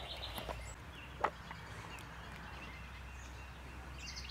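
Faint outdoor ambience with distant birds chirping, and one brief tap or handling sound about a second in.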